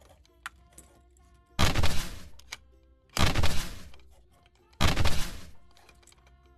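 Three loud rushing noise bursts, about a second and a half apart, each fading over half a second, as the apple in a toy juicer is squeezed for juice. Soft background music plays underneath.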